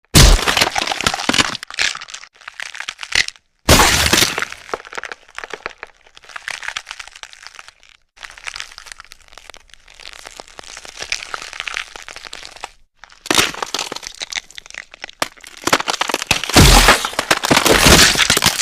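Gore sound effects of bones cracking and snapping mixed with blood-gush splatter: a run of loud, dense crackling bursts broken by a few short silences.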